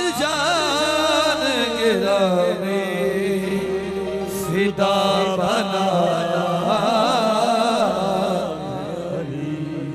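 Qawwali singing: a voice draws out long, melismatic phrases with a wavering vibrato over harmonium accompaniment holding steady notes beneath.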